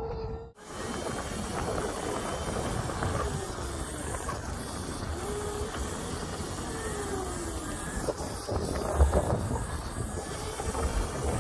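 Wind rushing over the microphone with the whine of an electric pit bike's motor, which falls in pitch a few times. A louder knock about 9 seconds in.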